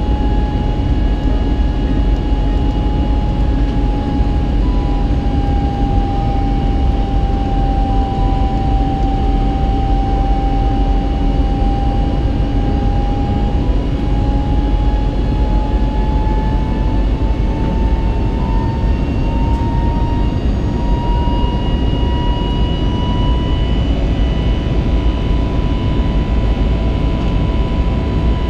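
Airbus A320neo jet engines heard from inside the cabin during takeoff and climb-out: a steady, loud roar with a whining tone that sags slightly, then rises in pitch partway through and holds.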